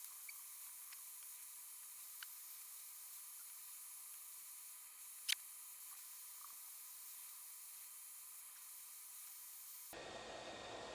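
Hot air rework gun blowing with a faint, steady hiss while SMD LEDs are desoldered from a circuit board, with a few faint ticks and one sharp click about five seconds in. Near the end the hiss gives way to a duller, lower rush.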